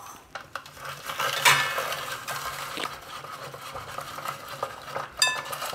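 Garlic cloves rattling in an orange plastic hand-held vegetable chopper as it is handled, with a sharp plastic click near the end.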